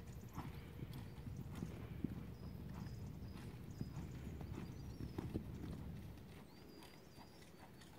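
Hoofbeats of a Lusitano horse moving over a sand arena, a run of soft irregular thuds that grow quieter after about six seconds.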